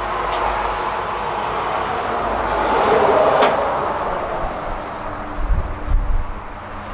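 A vehicle passing by: a broad noise that swells to its loudest about three seconds in, then fades. A few low thumps follow near the end.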